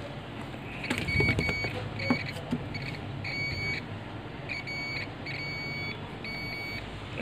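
Digital multimeter's continuity buzzer giving a high single-tone beep, over and over in short beeps of varying length from about a second in, as the probe touches points on a laptop motherboard. The beeping shows continuity to ground at those points, which the technician takes as a sign of a possibly shorted capacitor. A few faint clicks of the probe come in between.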